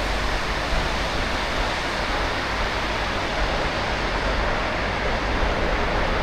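Steady, loud rushing noise of road traffic echoing inside a road tunnel.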